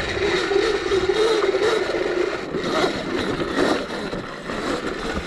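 Electric motor of a CZEM Drill One dirt bike whining under throttle, its pitch wavering for the first couple of seconds. The whine then fades under the noise of tyres and chassis clattering over rocky trail, with wind on the microphone.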